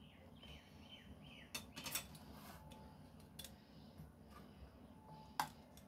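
Faint scraping and a few light clicks of a metal spoon and flat metal spatula against a metal cake tin as crumbly kalakand mixture is pressed level; the sharpest click comes near the end.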